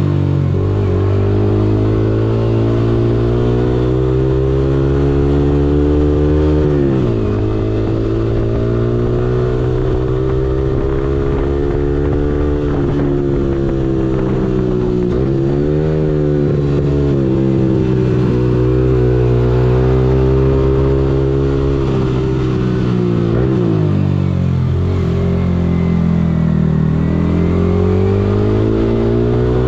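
Yamaha R15M's single-cylinder 155 cc engine under way as the motorcycle accelerates through the gears. The pitch climbs and drops sharply twice, about seven and fifteen seconds in, at upshifts, then falls and wavers as the bike slows near the end.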